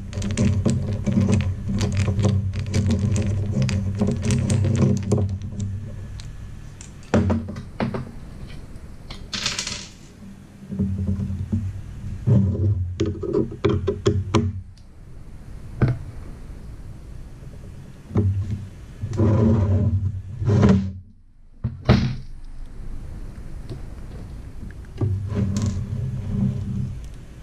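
Hand screwdrivers turning screws out of a metal camera housing and the housing being handled, with scattered clicks, scrapes and knocks. Background music with guitar comes and goes under it.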